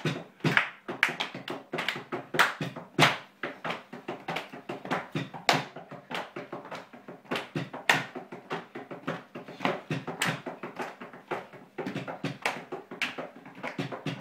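Irregular stream of sharp claps and taps, several a second, from people dancing in a small room.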